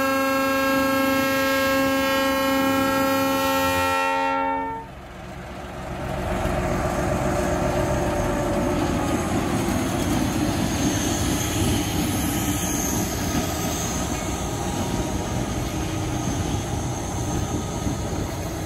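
Diesel locomotive horn sounding one long multi-note chord, cutting off about four and a half seconds in. After a short lull, the locomotive's engine and wheels are heard passing close by.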